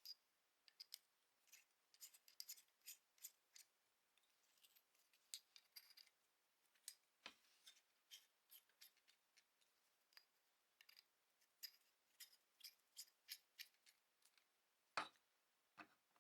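Small hard parts being handled: irregular light clicks and scrapes, a few each second, with a louder knock about halfway and the loudest knock about a second before the end.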